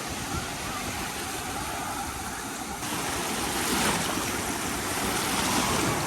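Sea waves washing on a beach, with wind on the microphone; the wash grows brighter and louder about halfway through.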